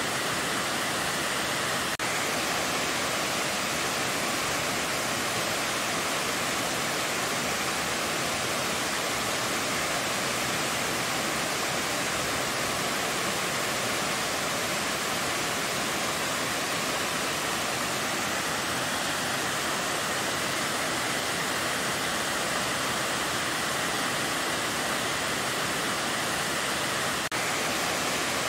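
Waterfall rushing: a steady, even roar of water cascading down a stepped rock face.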